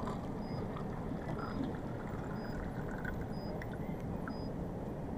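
A drink dispenser pours liquid into a paper cup over the ship's steady low engine rumble, with a short high beep about once a second.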